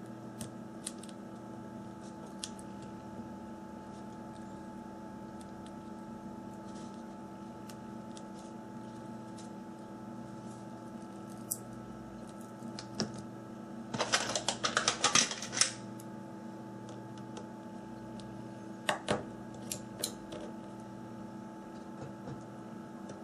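Small clicks and taps of hand tools on a phone's plastic and metal parts during disassembly, with a rapid flurry of clicks lasting about two seconds just past the middle and a few sharper clicks soon after, over a steady background hum.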